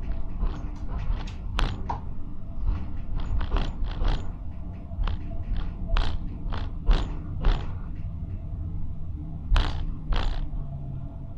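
Tram running on its rails: a steady low rumble with a string of irregular sharp clicks and knocks from the wheels on the track, the loudest two close together past the middle.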